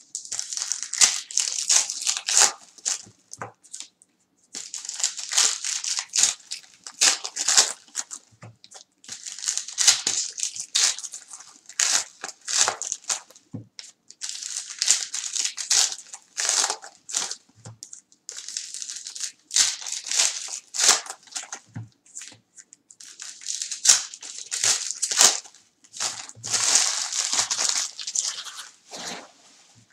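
Foil-wrapped trading card packs crinkling as they are handled and shuffled into stacks, in bursts of one to three seconds with short pauses, with soft taps as packs and cards are set down on the table.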